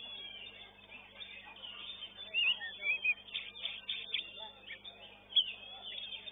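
Oriental magpie-robin (kacer) singing: a fast, varied string of short whistles, chirps and gliding notes, with louder sharp notes about two and a half and five and a half seconds in.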